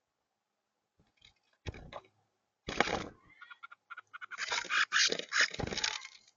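Agitated sparrows scuffling, with bursts of harsh, scratchy flapping noise: two short bursts, then a longer, louder one about four seconds in.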